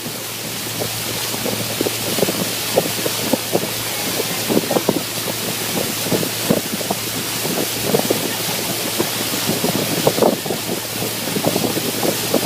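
Wind buffeting the microphone on a moving boat, in irregular gusts over a steady rush of water and a low steady hum.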